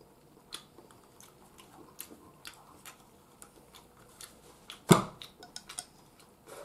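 Eating curry udon: scattered small clicks and taps of chopsticks against the bowl and of chewing, with one louder knock about five seconds in.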